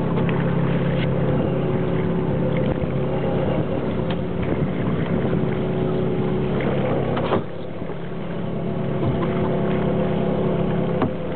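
A commercial trolling boat's engine runs steadily under scattered knocks and clatter on the boat. There is one sharp knock about seven seconds in.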